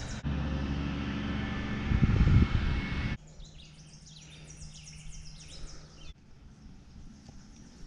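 Outdoor ambience that changes at sudden cuts. First a steady low rumble with a loud low burst about two seconds in, then birds chirping repeatedly over a faint steady hum, then quieter ambience near the end.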